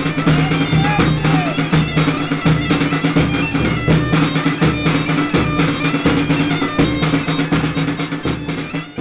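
Bagpipe with a steady drone playing a folk melody over a regular drum beat. The music starts to fade out near the end.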